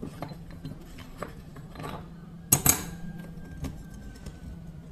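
Metal parts of a Honda CD 70 clutch assembly clinking and knocking together as they are handled and fitted into the hub: a few light clicks, then two sharper knocks about two and a half seconds in. A steady low hum runs underneath.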